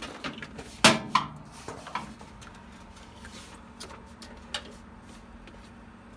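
Two sharp knocks of hard objects handled on a desk about a second in, then a few light clicks over a faint steady low hum.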